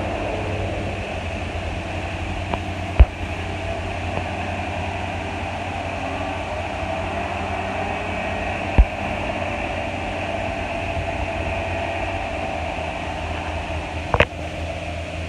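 Claas Lexion 750 TT combine harvester running steadily while harvesting rice: a continuous low machine hum with a hissing, fan-like whir. Three brief sharp knocks stand out, a few seconds apart.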